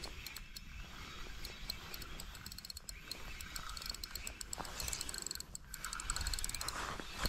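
Spinning reel being cranked during a retrieve, its gears turning with a dense run of fine clicks that breaks off briefly a little after halfway, then resumes.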